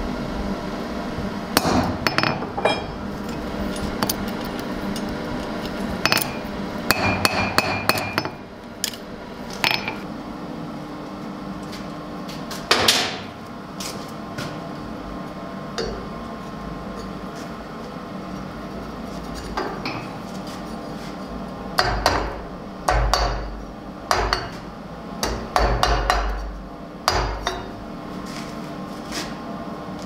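Blacksmith's hand hammer striking hot steel on an anvil: sharp, ringing metal blows in irregular bursts, with a pause of several seconds in the middle.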